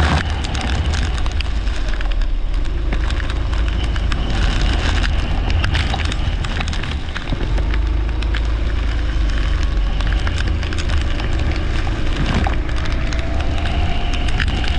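Leisure kart running on a wet track, heard from on board: a deep steady rumble of engine and wind with dense crackling from rain and spray, and a faint engine note rising near the end.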